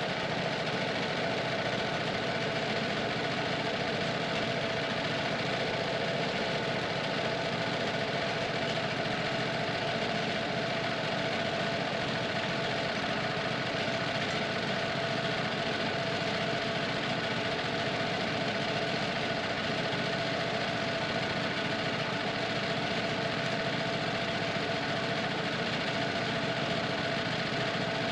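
Wood-Mizer LT35 sawmill's engine running steadily. It has been started on the newly replaced key switch, which is working.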